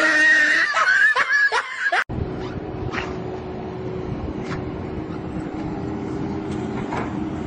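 A man laughs loudly for about two seconds. Then, after an abrupt cut, a Kubota compact track loader's diesel engine runs steadily with a low, even hum while its grapple holds a log.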